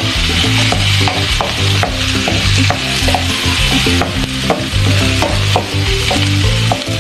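Garlic, onion, ginger and green chilies frying in hot oil in a wok, a steady sizzle, with a wooden spatula stirring and tapping against the pan many times.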